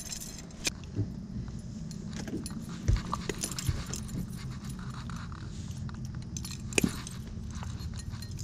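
Scattered metal clicks and a few dull knocks as fishing pliers work a hook free from a bowfin's mouth, over a steady low hum.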